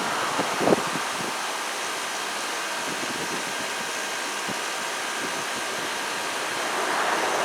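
Goodman GSX14 heat pump outdoor unit running steadily in defrost mode, a steady machine hum and hiss with faint steady tones. There is one short knock a little under a second in.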